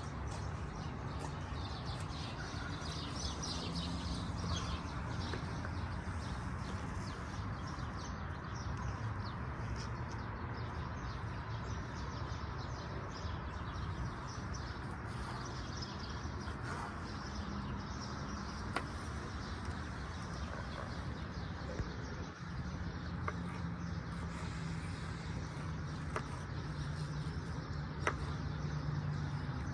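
Outdoor ambience: birds chirping over a steady low background hum, with a few faint clicks.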